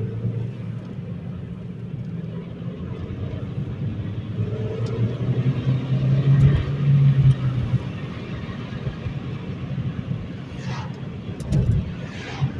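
Honda Civic Si's 2.0-litre four-cylinder engine and road noise while driving: a steady low drone, with the engine note growing louder for a couple of seconds around the middle.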